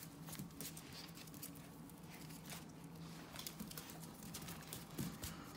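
Faint scuffling and pattering of a puppy's paws and claws on a hard floor as it tugs and worries a plush toy, with scattered small scrapes and clicks.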